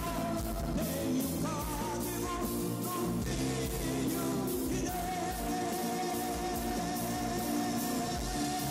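Live gospel band playing, with voices singing over electric guitars and drums that keep a steady cymbal beat. About five seconds in, a voice holds one long note.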